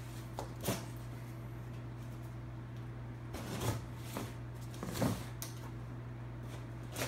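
A large knife slicing through packing tape and scraping across a cardboard box: a handful of short scraping rips, over a steady low hum.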